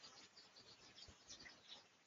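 Faint, scattered high-pitched bird chirps, many short calls overlapping, over a low background hiss.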